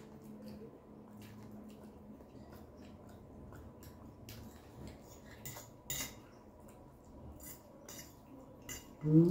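Metal forks and spoons clinking and scraping against glass dinner plates as two people eat, in scattered light clicks with a sharper clink about six seconds in.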